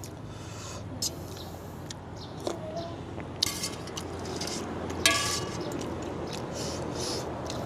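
Spoon clinking against a soup bowl a few times while eating: sharp clinks about a second in, around three and a half seconds and at about five seconds, the last one ringing briefly.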